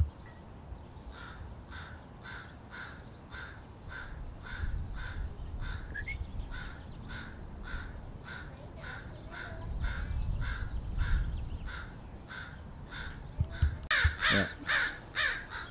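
American crows cawing in a steady, rapid series, about two to three caws a second: alarm calls at a gray fox close by. The calls grow louder and busier in the last second or two.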